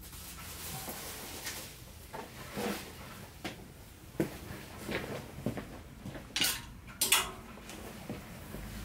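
Clothes being handled and put on: scattered rustles, light knocks and clatters, with two louder brushing sounds about six and a half and seven seconds in.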